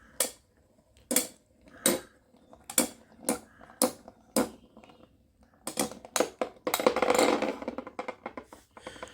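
Metal Beyblade spinning tops clashing in a plastic stadium: a series of sharp knocks spaced about half a second to a second apart, with a denser rattling flurry about seven seconds in.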